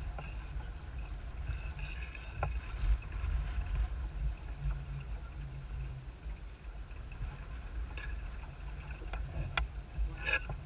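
Small sailboat moving under sail: an uneven low rumble of water and wind, with a couple of faint clicks, the clearest near the end.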